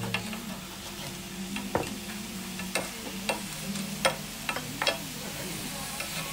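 Pork belly and kimchi sizzling in a cast-iron pan, with metal tongs clacking against the pan about eight times as the food is turned.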